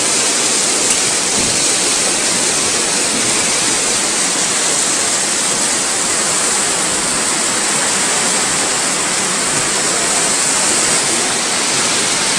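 Steady, even rushing noise with no distinct hits or changes.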